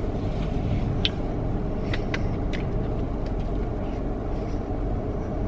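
Steady low vehicle rumble heard from inside a car cabin, with a few short clicks and taps in the first half.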